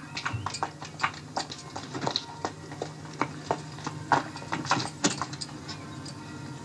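Hurried footsteps clattering on a concrete driveway: a quick, irregular run of sharp clicks over a faint steady hum, heard through a television speaker.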